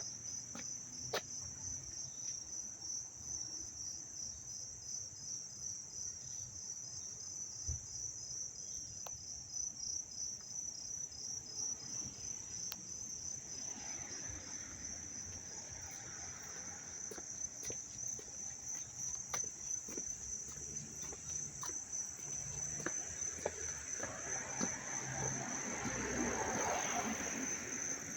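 Crickets chirping in a loud chorus, a steady high trill with a rapid even pulse. A broader rushing sound swells up around the middle and again near the end.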